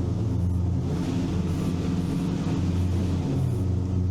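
Engine of the six-wheeled 'Veter' all-terrain vehicle running steadily under way at about 60 km/h, its pitch dipping and rising slightly a couple of times.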